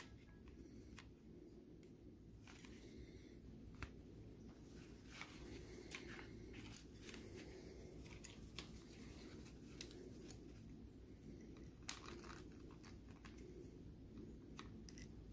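Near silence with faint scattered clicks and rustles of a gloved hand handling the plastic airbag clock spring of a Renault Mégane II, with one sharper click about twelve seconds in.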